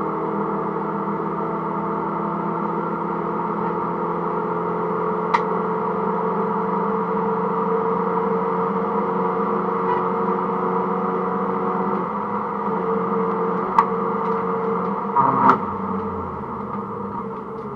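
Mini Cooper S (R53) supercharged four-cylinder engine heard from inside the caged cabin, holding a steady, nearly constant note. The note changes about two-thirds of the way through and eases near the end. Three sharp clicks or knocks come at intervals.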